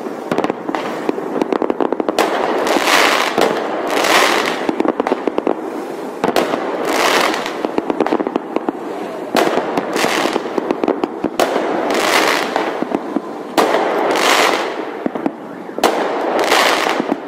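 Large aerial fireworks display: shells bursting one after another every second or two over continuous crackling.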